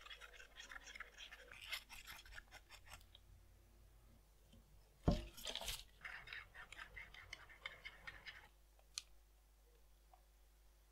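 Scratchy, rapid strokes of a brush working paint onto cardboard, in two spells, with a sharp knock about five seconds in and a light click near the end.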